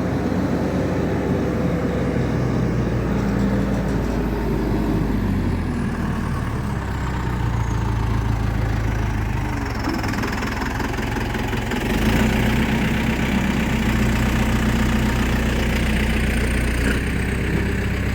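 Case 480 backhoe's engine running while the machine is driven and positioned on a trailer. Its speed shifts about six seconds in and picks up, running louder, from about twelve seconds in.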